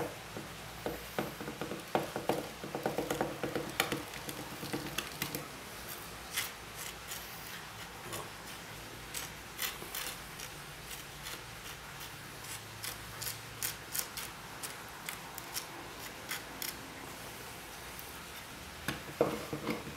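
Crushed turquoise grains rattling and clicking in a metal tray and trickling onto a wooden slab as they are poured and pushed into a crack, heard as scattered small irregular clicks and scrapes.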